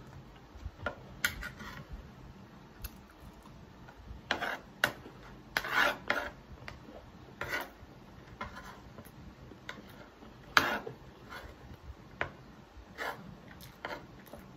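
Metal spoon and fork scraping and clinking on a plate while scooping up rice, in irregular short scrapes with a few sharp clinks, the loudest about ten seconds in.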